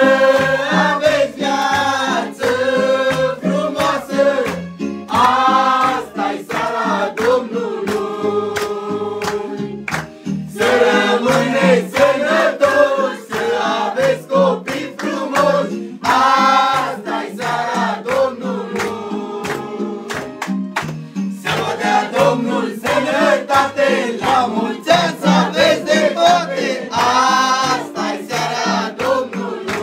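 A mixed group of men and women singing a Romanian Christmas carol (colindă) in unison, clapping their hands in time.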